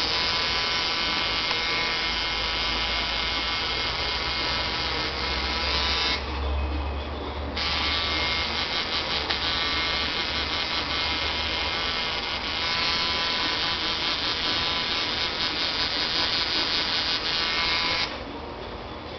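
Electric tattoo machine buzzing steadily, dropping out for about a second and a half around six seconds in, then stopping shortly before the end.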